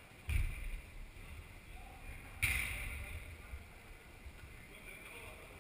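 Football kicked on an indoor artificial-turf pitch: a sharp hit about two and a half seconds in that rings briefly in the large hall, after a low thud near the start.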